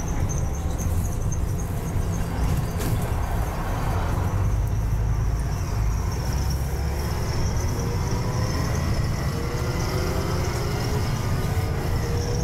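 Double-decker bus's diesel engine and drivetrain running under way, heard from the upper deck: a steady low rumble with road noise. In the second half a whine slowly rises in pitch as the bus picks up speed.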